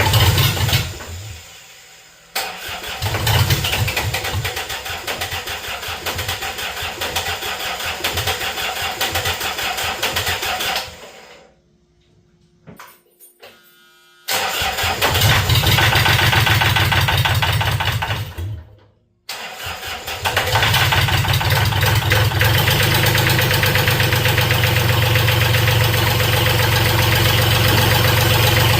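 Freshly rebuilt diesel engine of a Mustang skid steer cranking on the starter in several attempts with short pauses between them. About twenty seconds in it catches and keeps running steadily: the rebuilt engine's first start.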